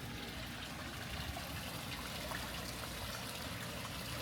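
Water trickling steadily into a garden koi pond, a continuous light splashing.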